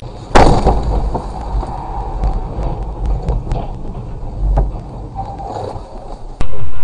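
Dashcam audio from inside a car driving on a wet motorway in rain: a steady rush of tyre and rain noise over a deep rumble, with scattered sharp ticks. It starts suddenly and loudly about half a second in and cuts off shortly before the end.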